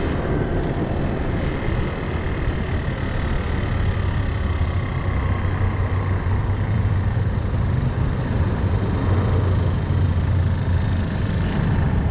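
Small scooter's engine running steadily as the scooter slows and stops at a red light, with cars going by in the cross street.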